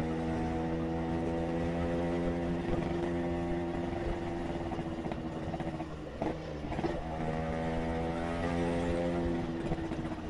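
Motorcycle engine running at a steady cruising speed, one even note with a short break about six seconds in, over road and wind noise.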